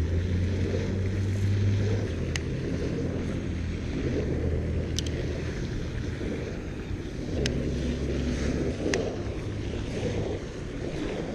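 Wind buffeting the microphone in low, uneven gusts, with a few sharp clicks.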